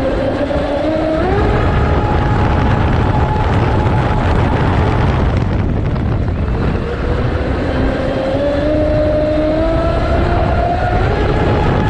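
Onboard sound of a radio-controlled Zelos 48 catamaran with a brushless motor conversion running at speed on the water. The motor's whine steps up in pitch about a second in, drops back around the middle and climbs steadily again in the second half. Under it runs a constant rush of water and wind on the boat-mounted camera.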